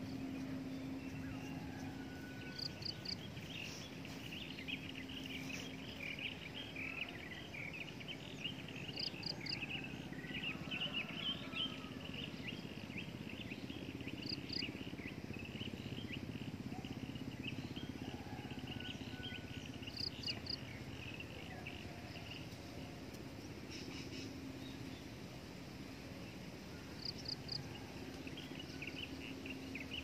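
Outdoor ambience of insects chirping in dense rapid trills. A short, high three-note call repeats five times, about every five or six seconds, and a low steady hum comes and goes.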